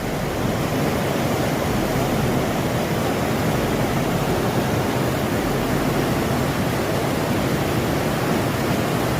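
Steady rush of fast-flowing river water, as at whitewater rapids, an even noise throughout.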